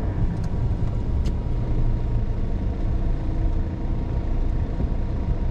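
Large truck's diesel engine running with a steady low rumble.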